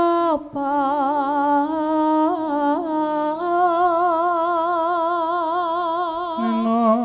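Javanese sindhen (female gamelan singer) singing: the word "prasapa" on a falling pitch, then one long melismatic note line with a steady vibrato that shifts pitch a few times and drops to a lower note near the end before stopping.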